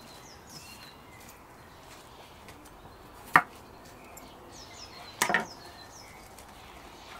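Chef's knife cutting through a romaine lettuce heart and striking an end-grain wooden cutting board: one sharp knock about three seconds in, and a second, slightly longer knock a little after five seconds as the knife is laid down on the board.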